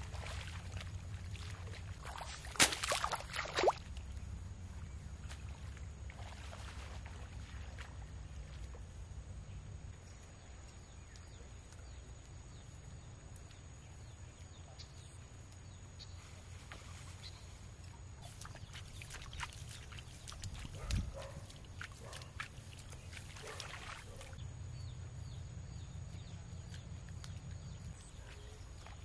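Water splashing and sloshing in a flooded rice paddy as a person wades and plants rice seedlings into the mud. The loudest splashes come in a short cluster a few seconds in, with scattered smaller splashes later over a low steady rumble.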